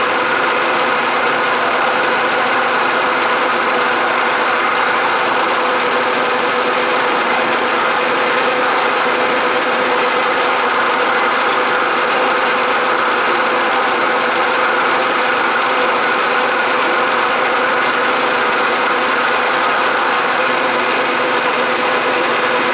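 Milling machine running steadily while a fly cutter takes a pass across an aluminum casting: an even, continuous machining noise with a few steady tones in it.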